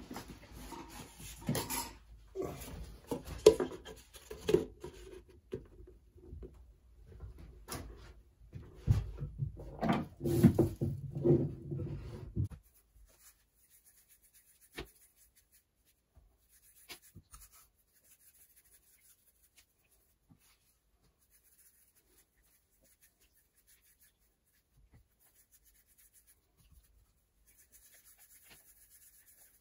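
Irregular knocking and rubbing of objects being handled, stopping abruptly about twelve seconds in, followed by near silence with a few faint ticks.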